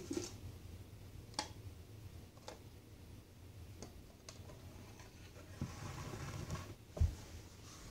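Small plastic toy bins handled on a wooden floor: scattered light clicks and taps, a short scraping shuffle near six seconds, then a dull thump about seven seconds in as a bin is set down.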